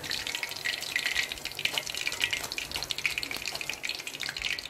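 Hot oil sizzling and crackling with many small pops around batter-coated mushroom pieces as they finish deep-frying and are lifted out in a wire-mesh spider strainer.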